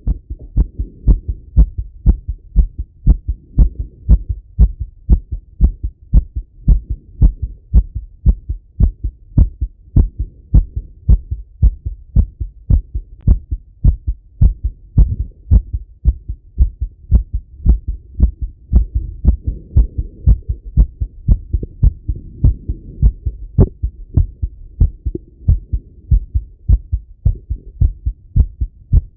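A man's heartbeat heard through a Littmann stethoscope pressed to his chest: an even, steady rhythm of low lub-dub thumps.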